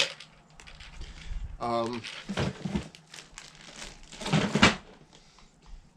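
Objects being handled: crinkling and rustling with several knocks, the loudest a thump about four and a half seconds in.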